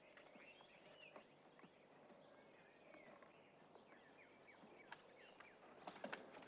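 Faint birdsong: scattered short chirps and little whistles over quiet outdoor ambience, with a few faint clicks near the end.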